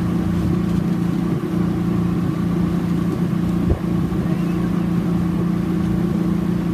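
Motorboat engine running at a steady speed, a constant droning hum with one brief knock a little past halfway.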